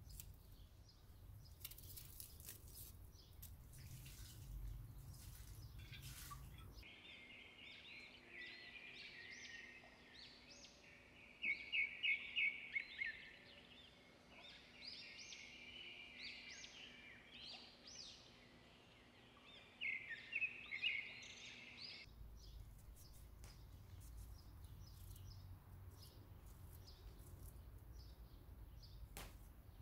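Small birds singing and chirping, with two louder bursts of rapid repeated notes. Before and after the birdsong come soft clicks of a small knife cutting onion and cucumber.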